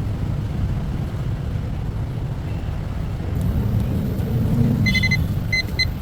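Steady rumble of street traffic. Near the end come a few short, high electronic beeps: one longer, then two quick ones.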